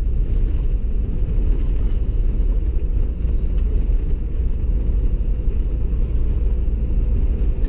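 A car or truck driving slowly over packed snow and ice in ruts: a steady low rumble of engine and tyres on the frozen surface.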